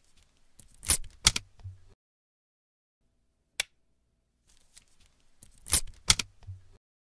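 Hydraulic hose quick couplers being snapped onto their fittings: a pair of sharp metallic clicks about a second in, a lone tick midway, and another pair of clicks near the end.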